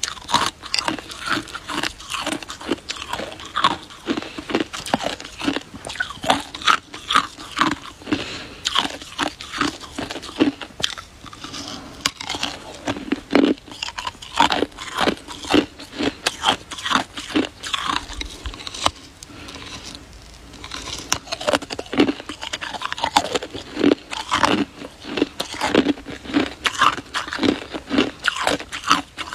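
Close-up crunching of a person biting and chewing a hard icicle: many sharp, irregular ice cracks and crunches, with a couple of brief pauses.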